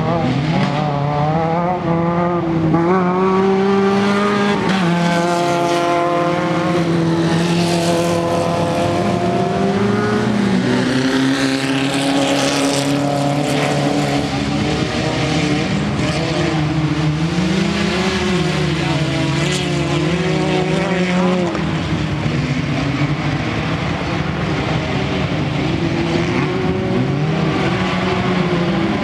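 Off-road race buggy engine revving hard, its pitch climbing and dropping again and again as it accelerates and lifts off around the track.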